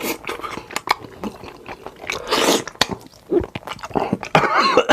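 Close-miked eating sounds: chewing with wet mouth smacks and clicks, and a loud breathy swell about halfway through.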